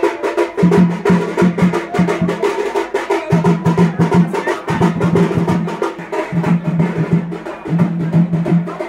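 Music with fast, dense drumming and a low note that repeats in short phrases.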